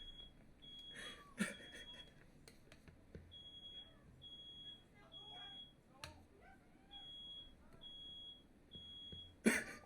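Smoke alarm beeping, a high steady beep repeating about once a second in runs, set off by firework smoke in the room. Faint voices sound under it, and a short loud noise comes near the end.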